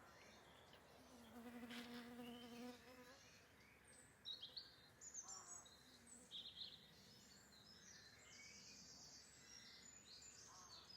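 Faint outdoor ambience. An insect, likely a fly, buzzes past for about two seconds near the start, then small birds chirp now and then.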